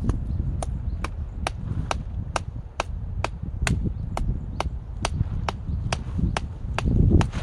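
Firewood being chopped by hand: a sharp strike on wood about twice a second in a very even rhythm, with a dull low thud under each stroke.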